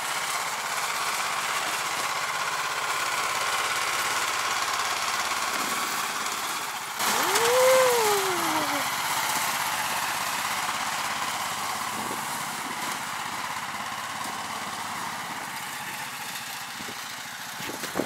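Small petrol engine of a Rybak tracked motor tow unit running steadily under load as it hauls a sled through snow. About seven seconds in it gets louder, with a brief rise and fall in pitch, then it slowly fades as the machine pulls away.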